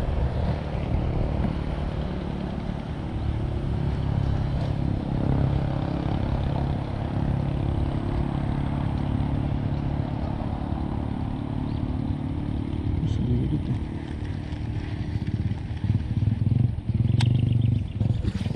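Engine running at a steady pitch, with a couple of sharp clicks near the end.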